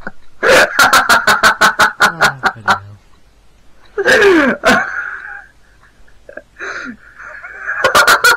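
Men laughing hard: a run of quick, rhythmic bursts of laughter, a louder burst falling in pitch about four seconds in, and more laughing near the end.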